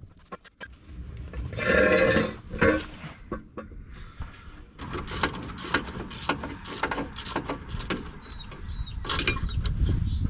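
Socket ratchet wrench clicking as a bolt is turned, in a run of sharp, evenly spaced strokes about two a second through the middle of the stretch.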